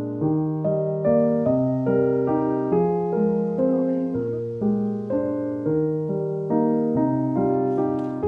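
Background piano music: a piece with a bass line under it, the notes struck about twice a second and each dying away.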